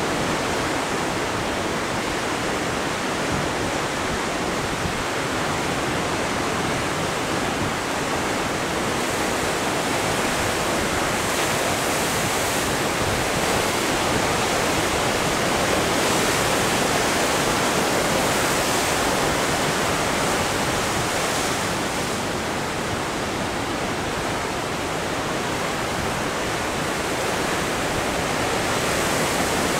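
Heavy ocean surf breaking and washing over rocks: a continuous rush of white water that swells a little about halfway through and again near the end.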